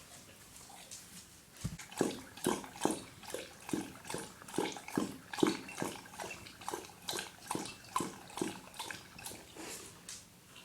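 Dog lapping water from a bowl: quick wet laps in a steady rhythm of about two to three a second, starting about two seconds in and tailing off near the end.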